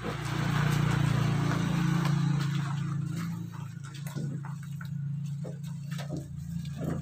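A small engine running steadily with a low hum, loudest over the first few seconds. Scattered knocks and clicks come from a heavily loaded wheelbarrow as it is moved over gravel.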